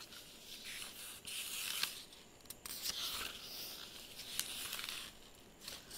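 Faint rustling with a few short clicks scattered through it.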